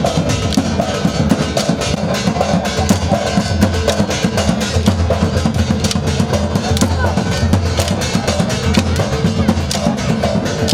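Gair dance folk drumming: a steady heavy drum beat with many fast, sharp strikes, with voices mixed in.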